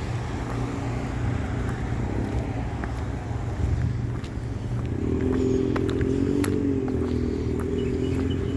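A motor vehicle's engine running with a steady low hum; a second, higher engine tone joins about five seconds in, with scattered light ticks over it.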